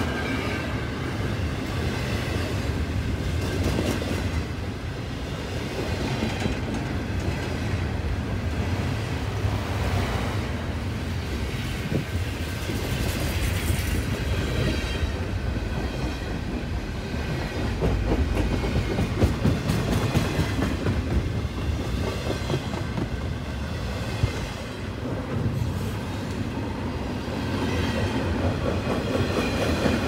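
Double-stack intermodal freight cars of a CN freight train rolling past at speed: a steady, loud rumble of steel wheels on rail, with a few brief clanks along the way.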